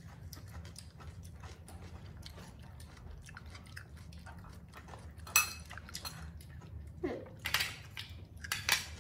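Scattered light clicks and knocks from plates and a plastic baby bottle being handled on a tiled floor, with a sharp knock about five seconds in and a few louder knocks near the end, over a low steady hum.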